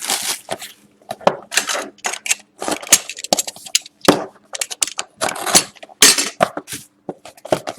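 Hands opening a sealed cardboard box of hockey cards and pulling the pack out: an irregular run of rustles, scrapes and sharp clicks of cardboard and wrapping.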